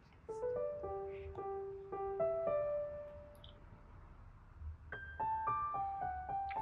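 Background piano music: a simple melody of single ringing notes, with a short lull partway through before the notes pick up again.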